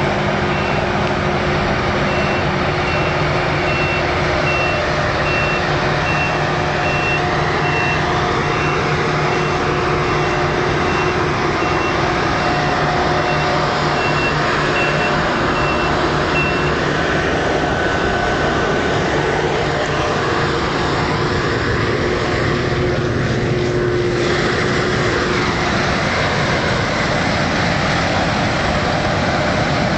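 Claas Lexion 580 combine harvester running steadily under load in wheat. A reversing alarm beeps at an even rate through the first half and stops a little over halfway through.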